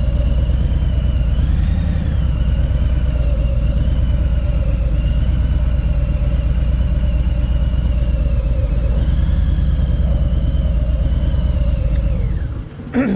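Motorcycle engine running steadily, with a wavering high whine over a deep rumble. Near the end the rumble drops away with a falling tone, then a sharp click.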